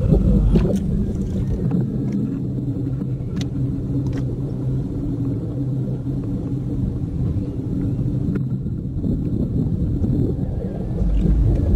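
A steady, low motor drone with a rumble, with a few faint knocks now and then.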